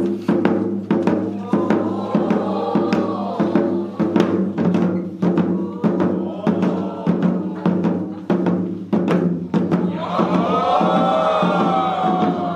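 Several janggu (Korean hourglass drums) played together in a steady, driving rhythm, with sharp strikes over a ringing low hum. A drawn-out vocal call rises and falls over the drumming about two seconds in, and again near the end.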